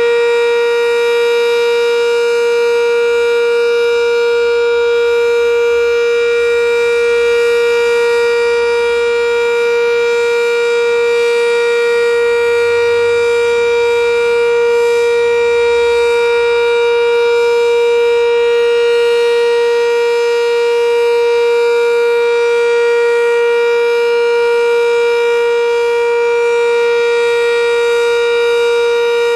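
Sentry 3V8-H outdoor warning siren sounding a steady alert tone at full speed: one loud, unwavering pitch with a stack of overtones.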